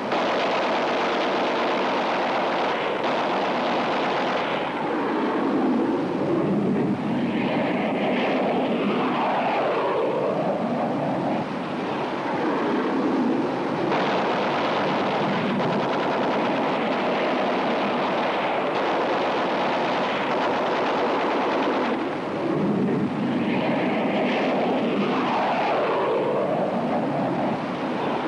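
Fiat G.91 jet fighters in flight, a steady jet roar whose pitch sweeps down and back up twice as aircraft pass, about a third of the way in and again near the end.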